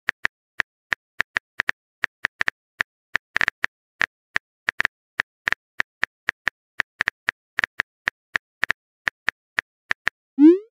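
Phone keyboard tap sound effect: short crisp clicks about three to four a second at uneven spacing, one for each key typed. Near the end comes a short rising swoosh as the message is sent.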